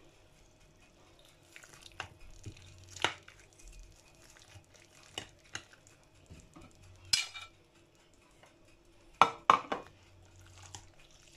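Slotted serving spatula scraping and tapping against a glass baking dish as baked macaroni cheese is cut and lifted out: scattered clicks and short scrapes, the loudest pair about nine seconds in.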